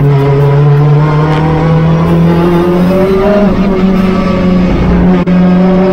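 Hyundai Veloster N TCR race car's turbocharged four-cylinder engine running hard at high revs, its note holding fairly steady and creeping up in pitch, with a brief break about five seconds in.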